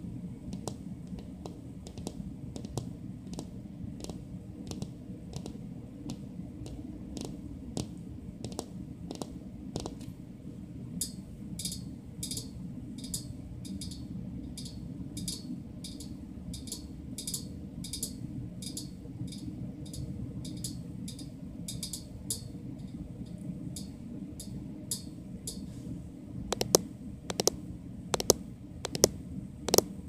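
Fingernails clicking and tapping together in a quick run of short clicks, about two a second, over a steady low hum. The clicks grow sharper partway through and are loudest in the last few seconds.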